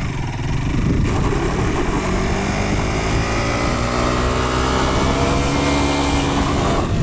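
KTM RC200's single-cylinder engine running on the stationary bike, revved up about a second in and held at raised revs, its pitch slowly easing down.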